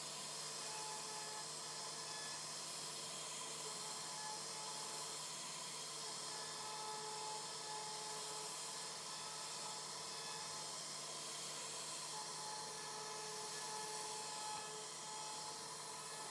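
CNC router's high-speed spindle running over a steady hiss, its whine fading in and out every second or two.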